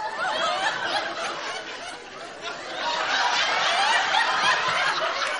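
Audience laughing, many voices together, growing louder about halfway through.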